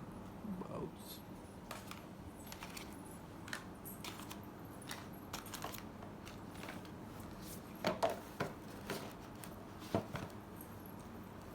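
Hands handling boxes and packaging: scattered small clicks, taps and rustles, with a cluster of louder knocks about eight seconds in and another knock about ten seconds in.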